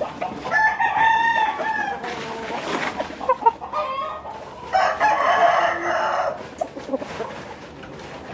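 Gamecock roosters crowing twice: one long crow about half a second in and another about five seconds in.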